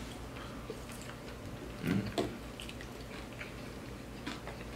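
Close-up eating sounds from chicken wings: soft chewing, lip smacks and small mouth clicks, with a brief murmur about two seconds in.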